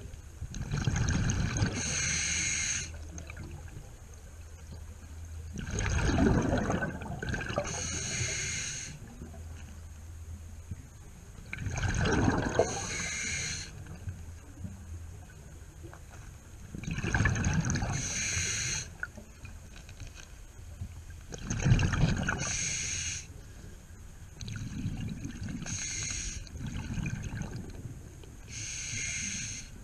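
A scuba diver breathing through a regulator underwater: a rush of exhaled bubbles and a hiss of drawn air, repeating about every five to six seconds, about half a dozen breaths.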